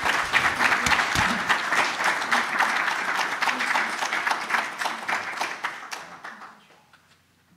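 Audience applauding, fading away over the last couple of seconds.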